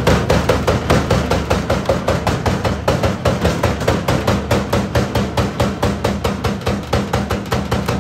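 Rabaud log splitter at work, forcing a round through its star-shaped multi-blade wedge: a steady rapid knocking, about six or seven knocks a second, over the low hum of the machine's drive.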